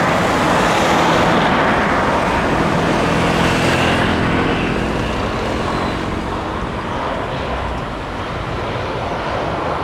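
Jet airliner engines roaring as the plane passes. The roar is loudest about a second in and then slowly fades, with a faint falling whine partway through.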